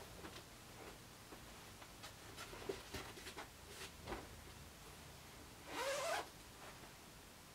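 Zebra mascot costume's fabric body suit being handled, with scattered faint rustles and light knocks, then a zipper run for about half a second about six seconds in, the loudest sound.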